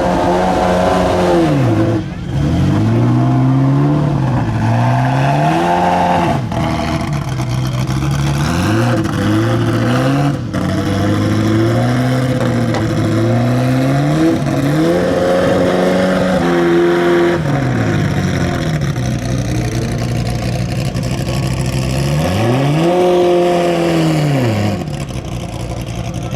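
Ferrari F40 LM twin-turbo V8 engine revving and accelerating hard. Its pitch climbs in several runs, each cut off by a sudden drop at a gear change, and it rises and falls back a few times.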